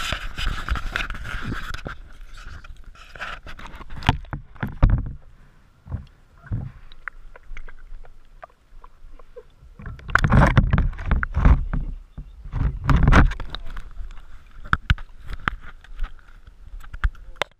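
A dog playing in a water bowl right at the camera: water splashing and sloshing, with irregular knocks and bumps against the camera. Louder stretches of splashing and jostling come about ten and thirteen seconds in.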